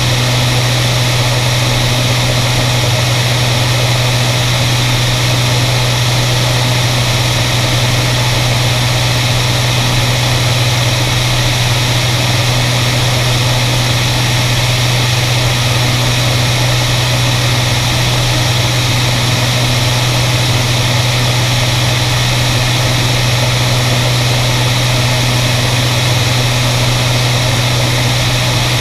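Beriev Be-103 seaplane in steady cruise: its twin piston engines and propellers make a constant low drone, with a wide steady hiss of airflow over it and no change in pitch.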